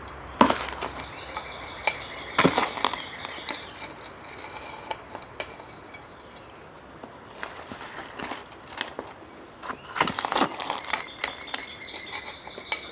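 Gritty potting mix of crushed granite and clay granules being handled and poured into a pot, the grit clinking and rattling now and then, loudest about half a second in, about two and a half seconds in, and again around ten seconds in.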